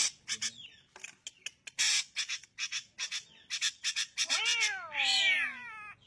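Drongo calling: a quick series of sharp, harsh notes, then, about four seconds in, a drawn-out wavering call that rises and falls for about a second and a half.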